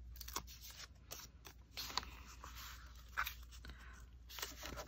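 Faint, scattered rustles and light clicks of paper being handled and pressed down onto a journal page by hand.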